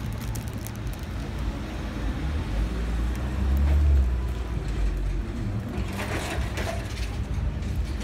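A vehicle towing an empty utility trailer drives past close by, a low rumble that swells to its loudest about halfway through and then fades.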